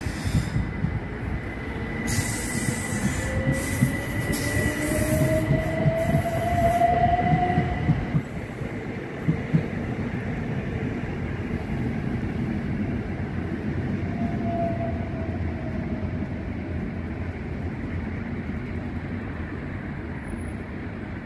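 Southern Class 377 Electrostar electric multiple unit pulling away, its traction motors whining up in pitch as it gathers speed over the first eight seconds, over a steady rumble of wheels with sharp clicks at the rail joints. The rumble then slowly fades as the train draws away.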